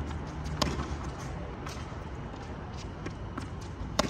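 Tennis ball struck by rackets and bouncing on a hard court during a rally: a sharp pop about half a second in and another near the end, with fainter hits and bounces between, over a steady low hum.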